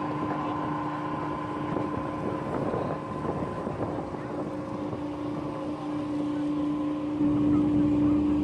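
Steady drone of an aircraft carrier's machinery, with a few constant hum tones over a rushing noise, growing louder about seven seconds in.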